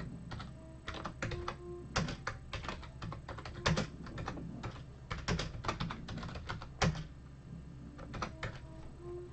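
Computer keyboard typing, with irregular runs of keystrokes and clicks that come thickest in the middle and thin out near the end.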